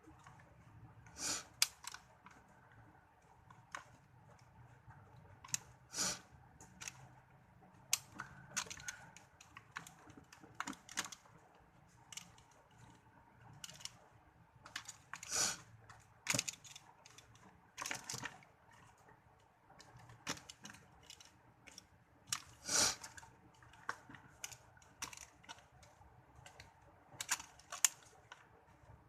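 Irregular sharp clicks and snaps, with faint scraping between them, from a Bluetooth keyboard being pried open and taken apart by hand; a handful of the snaps are louder than the rest.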